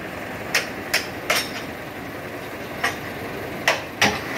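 Small dump truck's engine idling steadily, with about six sharp metallic clanks spread through as the rear tailgate latch is worked by hand before tipping the load.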